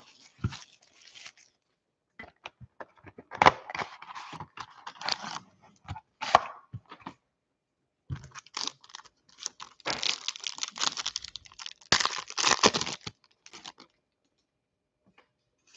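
A foil trading card pack being torn open and its wrapper crinkled, in irregular crackling bursts with taps of cardboard packaging. The longest stretch of tearing and crinkling comes about ten to thirteen seconds in.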